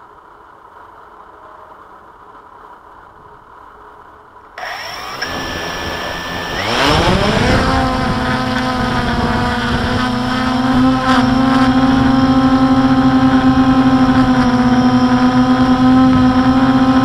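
Blade 350QX quadcopter's brushless electric motors and propellers, heard from its onboard camera. After a few seconds of faint hiss the motors start, rise in pitch as they spool up for takeoff, and then hold a steady hum.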